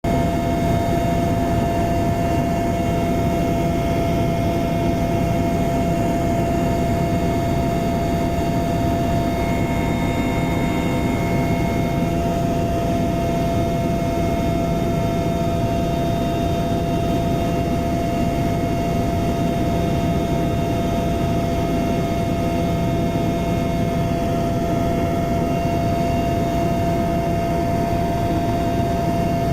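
Helicopter in level flight: a steady, unchanging drone of engines and rotor with a constant whine held on one pitch.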